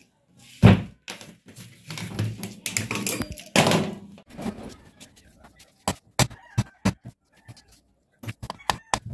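Thuds and knocks of a starter motor and its heavy cables being handled on a wooden workbench, with one loud thud early and a stretch of clatter. In the second half comes a run of sharp metallic clicks, about three or four a second, as the starter's parts are worked by hand.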